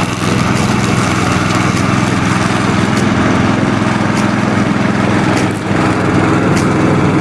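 Remote-control lawn mower's engine running steadily, with a brief dip in level about five and a half seconds in.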